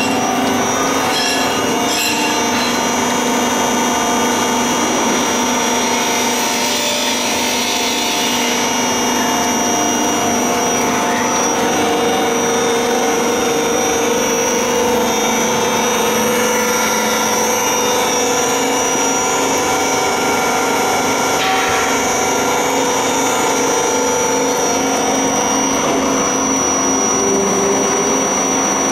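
MK-65 screw oil press running steadily under load while pressing nigella (black cumin) seeds: its electric motor and gearbox give a steady mechanical drone with several constant whining tones. A few light knocks sound in the first couple of seconds.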